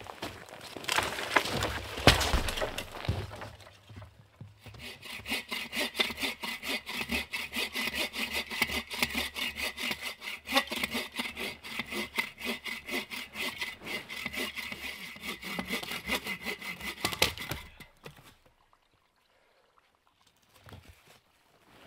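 Hand saw cutting firewood with quick, even back-and-forth strokes that run for about thirteen seconds and then stop, after a few seconds of irregular cracking of wood at the start.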